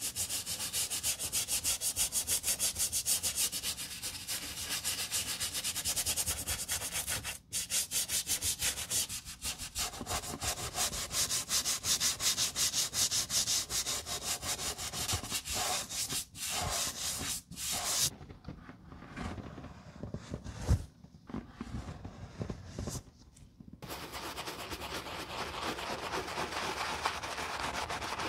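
Stiff bristle brush scrubbing soapy lather over a Blundstone boot's rubber sole and leather upper in quick, even back-and-forth strokes with a wet, foamy hiss. There is a quieter, duller stretch about two-thirds of the way through.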